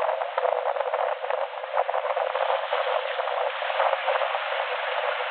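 Wind buffeting the microphone: a loud, continuous rush of noise that swells and gusts unevenly.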